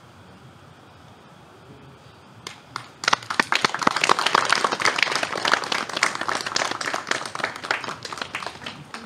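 Audience applauding: a few scattered claps about two and a half seconds in, then many people clapping together, tapering off near the end.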